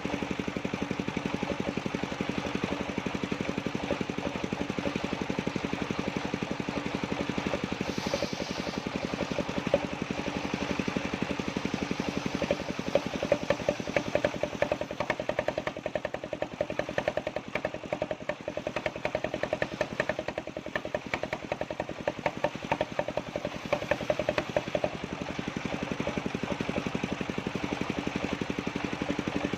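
Circular saw machine running steadily with a constant hum. From about twelve to twenty-five seconds in the sound turns rougher and louder, as the blade comes under load cutting through jackfruit wood.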